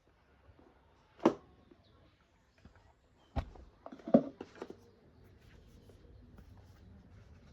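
Handling noise from unboxing a smartphone: a sharp click a little over a second in, another just after three seconds, and a short flurry of clicks and knocks around four seconds, over a faint low background.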